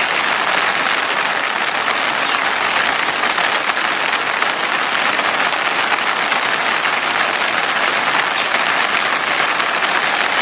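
Heavy monsoon rain falling steadily, a dense, even hiss with no let-up.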